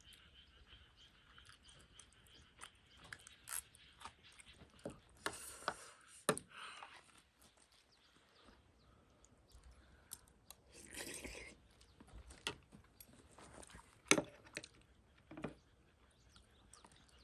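Close-up eating of instant ramen: chewing, with many small scattered clicks and two brief noisy bursts, about 5 seconds and 11 seconds in.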